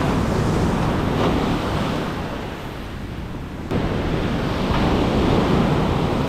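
Ocean surf breaking and washing up the sand, with wind buffeting the microphone; the level jumps abruptly a little past halfway.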